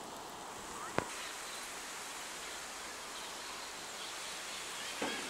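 Steady outdoor background hiss, with a sharp click about a second in and a softer one near the end.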